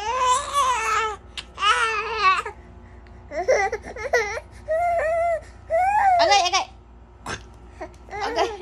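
A baby's loud, high-pitched squeals and babbling in about six short bursts with pauses between.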